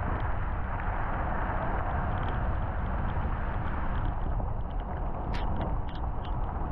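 A vehicle driving slowly on a wet gravel road, heard from inside the cabin: steady low rumble of engine and tyres, with scattered light ticks.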